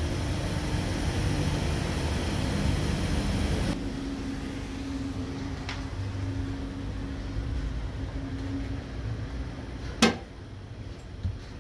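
Steady machinery and ventilation hum aboard a car ferry, with a low steady tone. It drops abruptly to a quieter level about four seconds in. A single sharp knock comes near the end.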